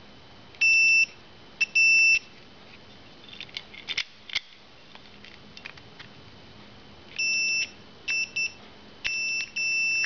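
Multimeter continuity beeper giving uneven beeps, a steady high tone cutting in and out as the ignition key is wiggled in the lock, with a few light clicks between. The intermittent continuity suggests bad contacts in the ignition switch, though the owner is unsure whether the meter or the switch is at fault.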